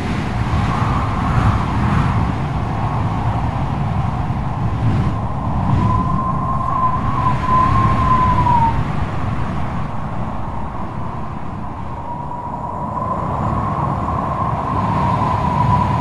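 Strong wind rushing over the microphone with a low rumble of heavy surf. A high, slightly wavering whistle-like tone comes in about six seconds in, fades near nine seconds, and returns from about twelve seconds.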